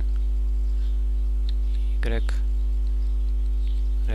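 Steady electrical mains hum with a ladder of overtones, carried on the recording microphone. A short voiced murmur comes about two seconds in.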